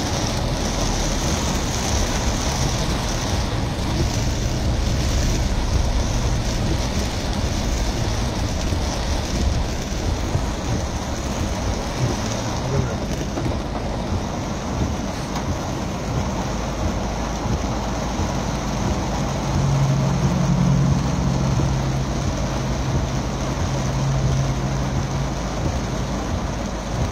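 Heavy rain on a car's roof and windscreen, heard from inside the moving car, with a steady noise of tyres on the wet road. A low steady hum joins in for several seconds about two-thirds of the way through.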